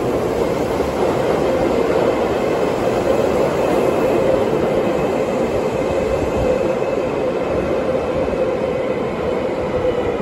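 Tobu 9000 series electric train (set 9105F) pulling out of an underground station and running off into the tunnel: a steady rumble of wheels and motors with a held hum, echoing off the tunnel walls, and a faint high whine partway through.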